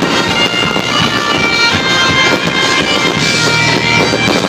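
Loud music with sustained tones plays over a fireworks display, with a dense, continuous crackle of bursting fireworks beneath it.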